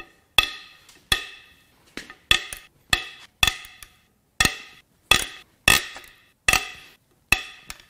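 Head bolts on a Ford 4.9L 300 straight-six's cast-iron cylinder head being broken loose one after another with a long breaker bar. There are about ten sharp metallic cracks, each ringing briefly, a little under one a second.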